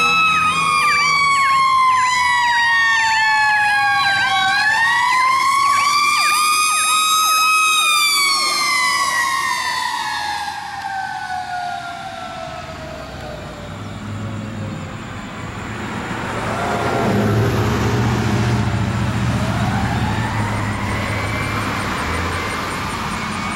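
Fire engine's Federal Q2 mechanical siren winding down, spinning back up and then slowly winding down. For the first several seconds a fast-repeating electronic siren tone sounds over it. Later the truck's engine rumble swells as the siren rises once more.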